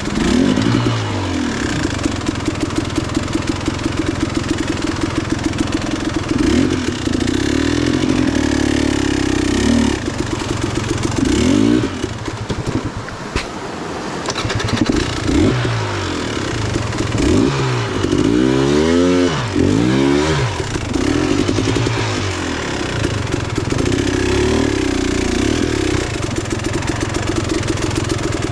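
Dirt bike engine running under load, its revs rising and falling repeatedly as the throttle is worked, with a run of quick throttle blips about two-thirds of the way through.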